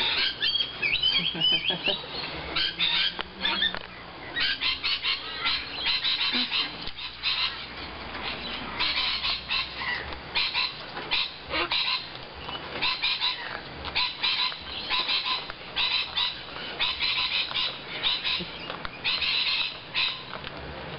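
Sulphur-crested cockatoos squawking, many short calls one after another with brief gaps.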